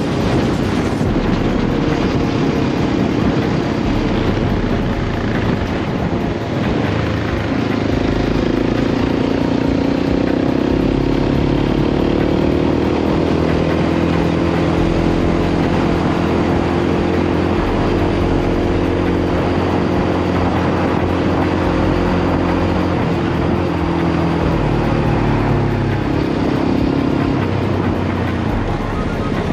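Yamaha Raptor 700R sport quad's single-cylinder four-stroke engine running at a steady cruising pace under way. The engine note falls about three-quarters of the way through as it eases off.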